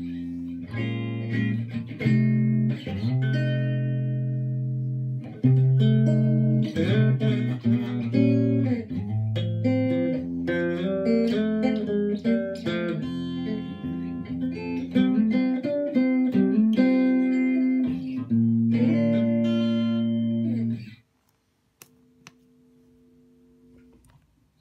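Electric guitar played through an amplifier via a George Dennis overdrive wah pedal, test-playing notes and chords to show the repaired pedal works again. The playing stops about 21 seconds in, leaving only a faint steady amp hum.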